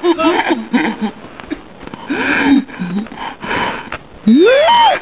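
Women's voices laughing and shrieking in play, without words, ending in a loud rising shriek near the end.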